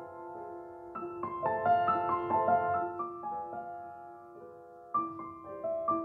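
Background piano music: a slow melody of held notes, with new chords struck about a second in and again near the end.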